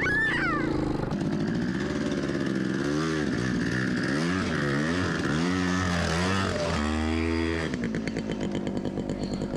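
Off-road motorcycle engine running, its pitch rising and falling about five times as it is revved. Near the end it settles into a lower, steadier pulsing run.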